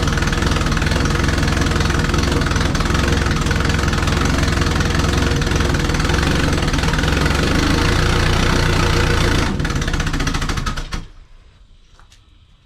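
Compound twin-turbo Subaru EJ20 flat-four running at a rough idle with heavy exhaust leaks. About nine and a half seconds in the throttle is opened and the engine stumbles and dies, cutting out suddenly; the owner puts the stall down to the exhaust leaks.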